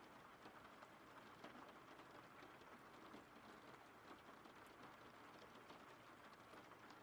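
Faint steady rain, an even patter with scattered drop ticks.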